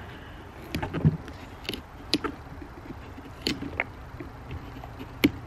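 Kitchen knife cutting into a pumpkin's rind and flesh: a series of short, irregular cutting sounds, the loudest about a second in and near the end.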